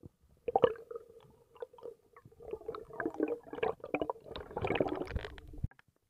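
Muffled underwater gurgling and irregular knocks, the sound of water and bubbles moving around a camera held underwater; it starts suddenly and cuts off shortly before the end.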